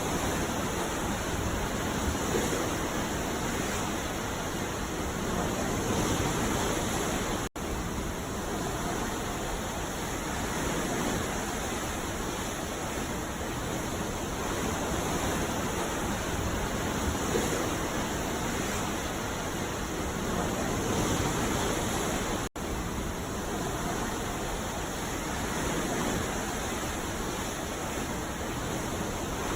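Ocean surf washing onto a beach: a steady rush of water that swells and eases slowly. It drops out for an instant twice, about a quarter of the way in and again about three-quarters of the way through.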